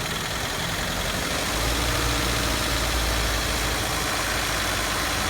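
Car engine running with one fuel injector not working, so that cylinder is misfiring. The low rumble grows stronger for a few seconds midway.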